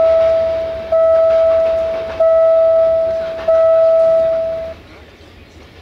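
Level-crossing warning bell ringing: a single clear ding about every 1.3 seconds, each one fading slowly. It falls silent near the end, the crossing warning ending once the freight train has passed.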